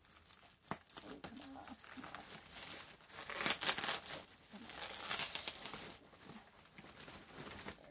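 Plastic bubble wrap crinkling and rustling in uneven bursts as hands work at it and pull it open, the loudest bursts about halfway through.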